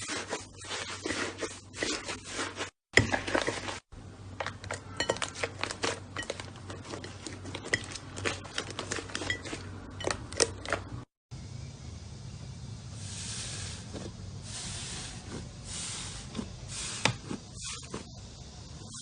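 Slime being squeezed and worked by hand: a dense run of small crackling clicks and pops, then softer squishing swishes in the last several seconds. It cuts out briefly two or three times.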